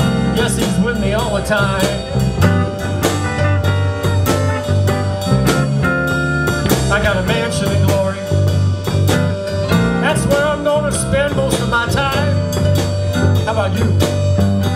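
Live blues band playing: electric guitar and bass over a steady drum beat with keyboard, the lead line bending and wavering in pitch.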